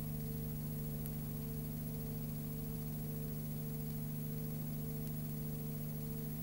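Steady low hum under a constant hiss, with a higher tone in the hum that swells and fades about once a second; nothing from the filmed scene is heard.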